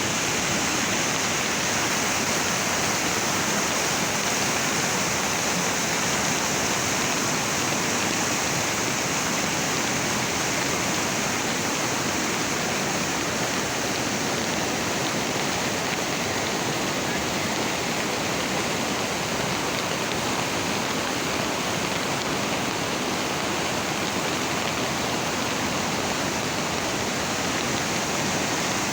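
Floodwater in a swollen river rushing steadily, a continuous even wash of fast-moving water.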